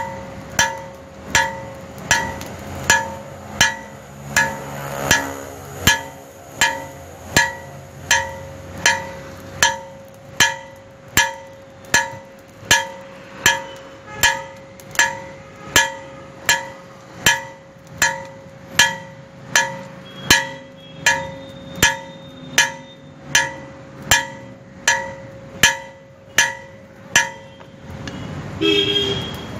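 Hammer blows on steel over an anvil at an even pace, about four every three seconds, each one ringing with a bright metallic tone, with the anvil's ring running on between strikes. The hammering stops near the end, followed by a short, louder noise.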